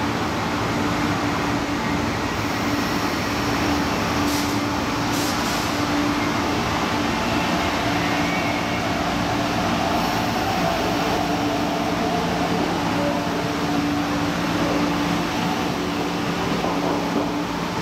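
MTR East Rail Line R-Train (Hyundai Rotem nine-car electric multiple unit) running along the platform. A steady rail rumble with a few held humming tones from its traction equipment.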